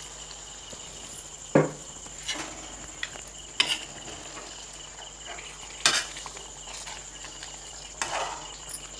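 A perforated metal spoon stirring chicken curry in an iron kadhai, clinking against the pan several times. A steady high chirring of crickets runs behind it.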